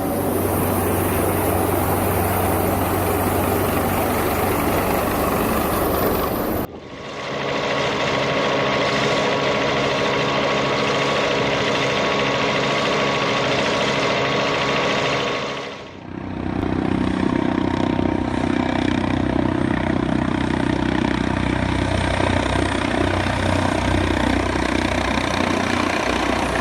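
Helicopter engines and rotors running steadily: three separate recordings, with a cut about a third of the way in and another just past the middle. The middle one carries a set of steady engine tones.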